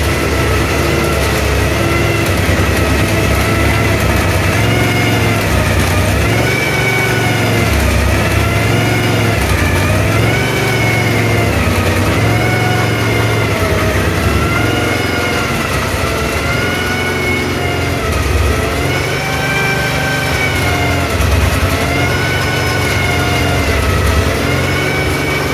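Duquesne D08 LMP3's Nissan V8 race engine running in the garage, its revs rising and falling in gentle swells every second or two.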